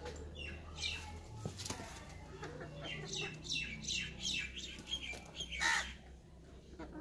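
Domestic chickens clucking in a run of short calls, the loudest a little over five seconds in.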